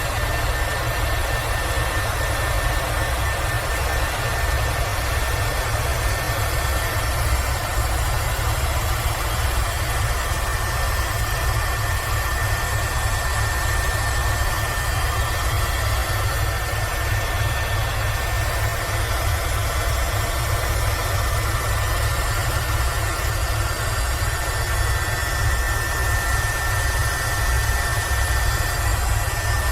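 Airbus H130 (EC130 EcoStar) single-engine helicopter in steady flight: the low beat of the main rotor under a constant high turbine whine, unchanging throughout.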